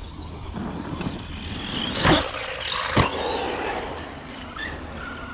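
Brushless electric motor of an Arrma Kraton 4S V2 RC truck whining as the throttle is worked, its pitch rising and falling, with two hard knocks about a second apart around the middle.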